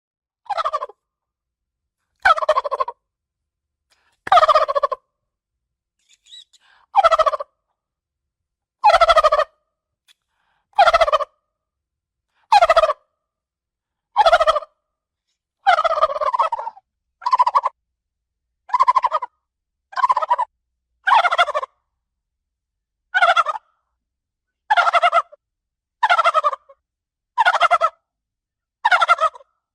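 A male turkey gobbling over and over, about eighteen short rattling gobbles that each fall in pitch, one every one and a half to two seconds, with silence between them.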